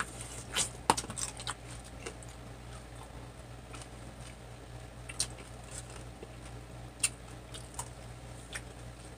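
Eating sounds: a person chewing fried chicken, with scattered wet clicks and lip smacks, busiest about a second in, over a steady low hum.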